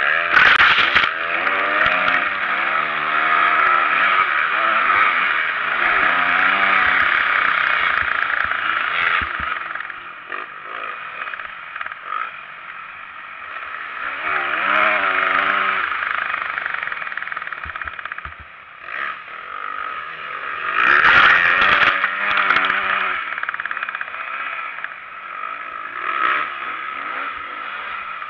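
Motocross bike engine revving up and down repeatedly through the gears, with heavy wind noise and rattling on the bike-mounted camera. Two brief loud blasts of noise break in, one at the very start and one about 21 seconds in.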